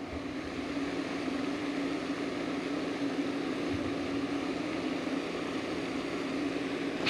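Steady outdoor background hiss with a constant low hum underneath, unchanging throughout.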